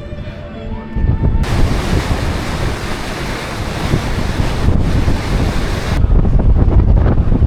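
Strong wind buffeting the microphone on a boat, with a loud rushing hiss of wind and water from about a second and a half in until about six seconds, then a heavy low wind rumble.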